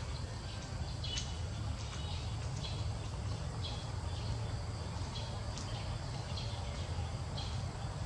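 Outdoor ambience: short high chirps repeat about once a second over a steady low rumble.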